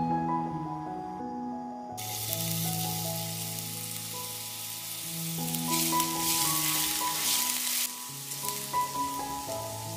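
Minced garlic sizzling in hot oil in a frying pan, starting suddenly about two seconds in and louder for a couple of seconds midway, then stirred with a spatula near the end. Background music plays with it.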